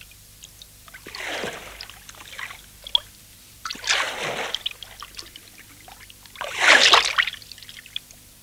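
Water splashing three times, each splash lasting about a second and a couple of seconds apart, the third the loudest, with light trickling and dripping in between.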